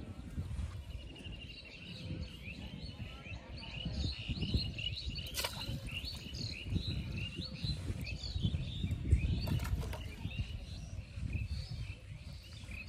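Small birds chirping and twittering, many quick high chirps one after another, over a low rumbling background noise. A sharp click comes a little after five seconds in, and another near ten seconds.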